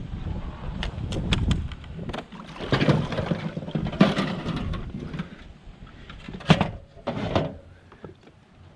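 Irregular knocks and thumps on a jon boat as a person climbs back aboard, over wind buffeting the microphone. The loudest knocks come about four and six and a half seconds in.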